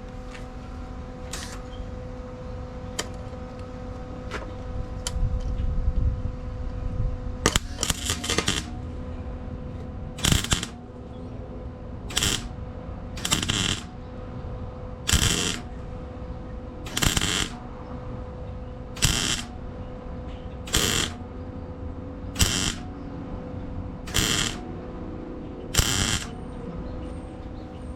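Flux-core wire-feed welder (Lincoln Weld-Pak 100) laying short stitch welds to fill small holes in thin sheet-metal frame rail: about ten brief arc bursts, one every couple of seconds, with pauses to let the metal cool in between. A steady hum runs underneath.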